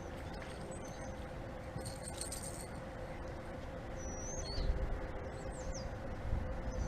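Outdoor ambience: steady low wind rumble on the microphone that swells briefly a few times, with a few short, high bird chirps a little past the middle.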